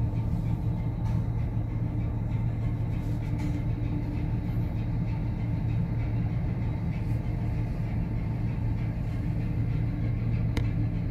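Steady low machinery hum of a bulk carrier under way, heard from inside the wheelhouse. A single faint tick comes near the end.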